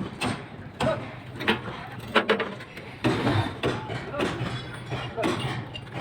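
Irregular knocks and clanks of construction work, with voices in the background.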